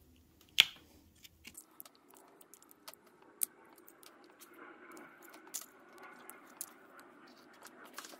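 A metal pick prying and scraping at the cap in the centre of a VW transmission's output flange: one sharp click about half a second in, then faint scattered ticks and scrapes.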